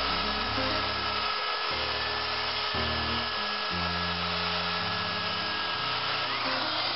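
Handheld Craftsman router with a 3/4-inch straight bit running steadily, routing a dado in a 2x4, with a constant whine over the cutting noise. Background music plays under it.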